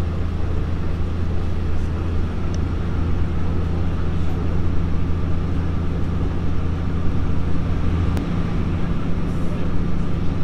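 Interior running noise of a Nippon Sharyo diesel multiple unit under way: a steady low engine drone over wheel-on-rail noise. About eight seconds in the lowest drone eases and a single sharp click sounds.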